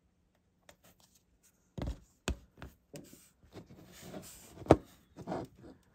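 Handling noise from fingers and tweezers working a small plastic model truck on a cutting mat: light taps, clicks and rubbing starting a couple of seconds in, with one sharp click near the end.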